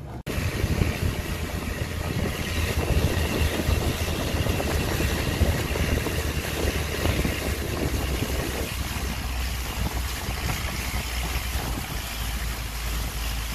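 Motorboat under way on open water: its engine running with a steady deep rumble under an even rushing hiss of water and air.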